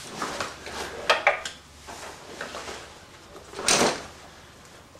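Small metal parts of a CMMG .22 conversion bolt handled on a workbench during disassembly. There are a few light clicks and knocks in the first second and a half, then a short scraping slide a little before four seconds in.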